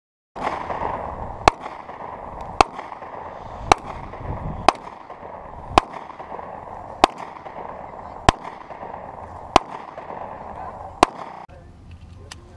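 Nine single gunshots from a handgun, fired one at a time at a slow steady pace of roughly one a second, over a steady hiss.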